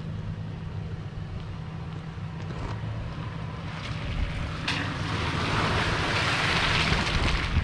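Toyota FJ Cruiser's 4.0-litre V6 running steadily at low revs as the vehicle crawls through muddy ruts. A rushing hiss of wind on the microphone swells over the second half.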